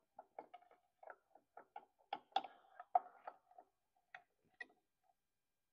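Faint, irregular metallic clicks and clinks as a primary chain and clutch basket are worked onto the clutch hub and engine drive gear of a Royal Enfield Bullet 500, the loudest a little past two and three seconds in.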